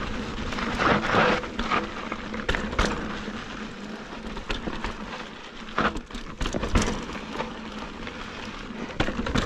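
Mountain bike rolling fast over a dry, rocky dirt trail: tyres crunching on loose, gravelly soil, with irregular knocks and rattles as the bike hits rocks and bumps.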